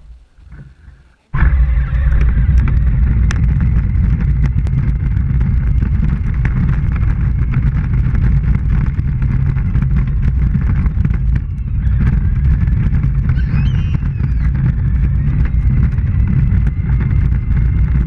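Child's battery-powered ride-on toy tractor driving along, picked up by a camera fixed to its hood. A loud, steady rumble of wheels and drive motor starts suddenly about a second in, as it sets off.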